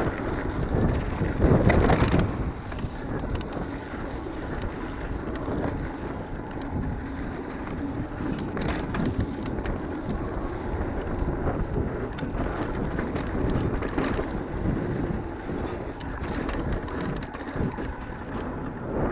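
Wind rushing over the microphone of a mountain biker's camera on a fast dirt-trail descent, mixed with tyre noise on loose dirt and frequent clicks and rattles from the bike. The rush is loudest about two seconds in.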